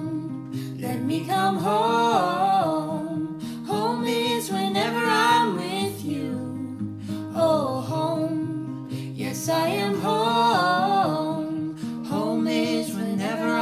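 Background music: a singer carries a slow melody over guitar.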